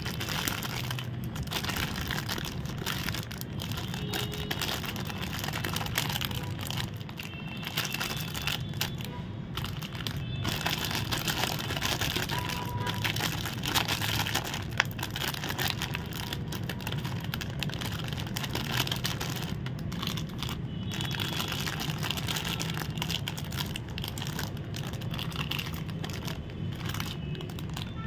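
Shiny plastic snack wrappers of packaged chocolate donuts crinkling and crackling as hands squeeze and turn them, with many small sharp crackles over a steady low hum.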